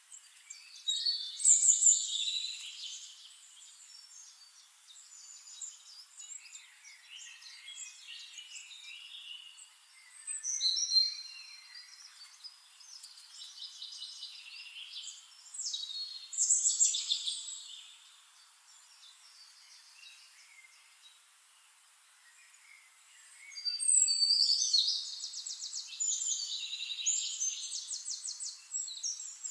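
Songbirds singing in separate phrases of high whistles and chirps with quiet gaps between them. A long, fast trill of rapidly repeated notes comes near the end.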